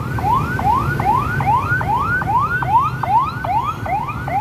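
An electronic siren sounding in quick rising sweeps, about three a second, each snapping back down before the next, over a steady low rumble.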